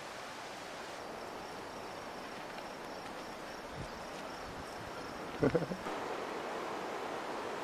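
Steady outdoor hiss with an insect trilling as a faint, high, evenly pulsing tone from about a second in. About five and a half seconds in comes a quick cluster of loud low thumps.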